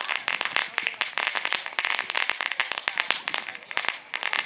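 Ground fountain firework spraying sparks with a dense, rapid crackling of many sharp pops, easing briefly near the end.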